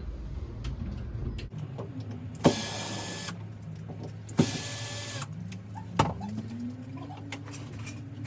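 Cordless drill-driver run in two short bursts about two seconds apart, each starting with a sharp click, backing the screws out of an old door deadbolt. Another sharp click comes about six seconds in.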